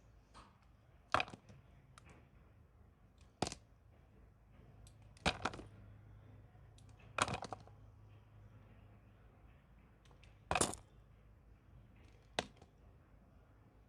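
Knife cutting through a bar of strawberry pulp soap: six short, sharp crunchy cuts spaced about two seconds apart, some breaking up into a quick crackle.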